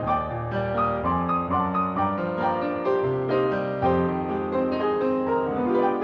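Solo piano played live for a ballet class stretch, a flowing run of held, overlapping notes and chords.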